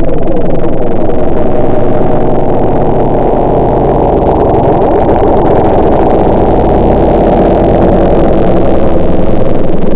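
A motor running steadily and loudly, its pitch wavering slightly, with little sharpness or high-end buzz.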